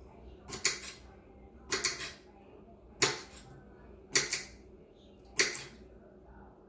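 Kitchen knife slicing through a cucumber and striking the cutting board: five sharp chops, about one every 1.2 seconds.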